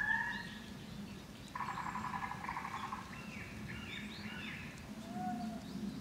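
Recorded bird calls played from an automatic bird-scaring loudspeaker system in orange orchards, which the speaker guesses is meant to scare birds off. A harsh rattling call comes about a second and a half in, followed by a quick run of short rising-and-falling chirps and then a few lower held notes near the end.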